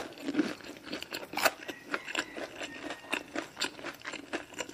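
Close-up eating sounds: crispy fried chicken being bitten and chewed, making quick, irregular crunches and crackles.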